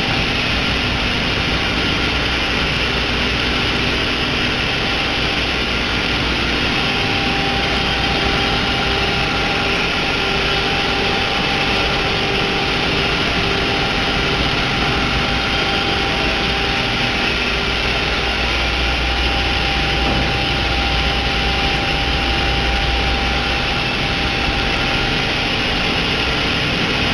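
Diamond wire saw running steadily while cutting: an even machine whir with a few steady hum tones and a low rumble that grows somewhat stronger past the middle.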